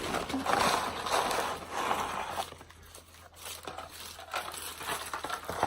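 Paper fast-food bags and wrappers rustling and crinkling as the food is unpacked. The rustling is loudest for the first two seconds or so, then eases into quieter handling with a few light clicks and knocks.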